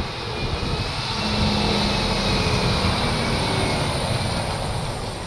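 DAF XF106 460 tractor unit's PACCAR MX-13 six-cylinder diesel engine running as the truck drives slowly across the yard and turns. It grows louder about a second in and eases off a little near the end.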